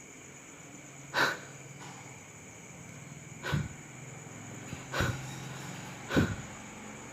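A person's short, sharp breaths close to the microphone, four of them about a second or so apart, over a faint steady hum.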